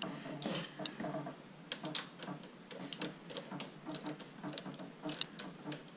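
Rapid, irregular light clicks and taps, several a second, each with a faint ring.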